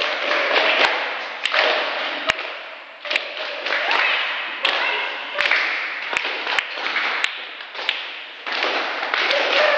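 A group of onlookers clapping steadily, the noise swelling and easing, with a dozen or so sharp single thuds scattered through.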